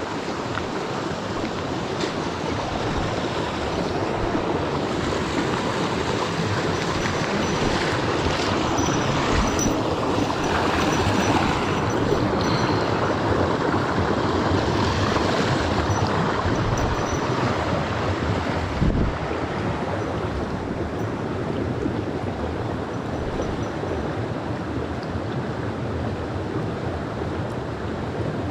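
Mountain stream's rushing water: a steady hiss, a little louder through the middle, with a single short thump about two-thirds of the way through.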